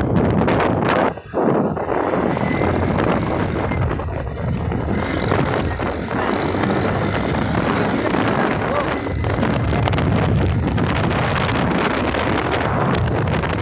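Wind rushing and buffeting over the microphone of a moving TVS Ntorq scooter, with the scooter running underneath. The rush drops out briefly about a second in.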